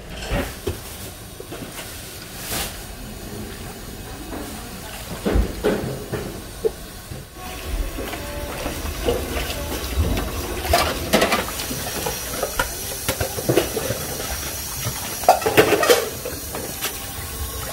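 Food-preparation sounds of soybean sprouts being handled in water: a steady watery hiss with splashing, knocks and clatter, busiest in the second half.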